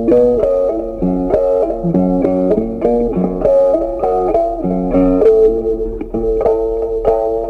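Background music: a plucked guitar tune over a bass line.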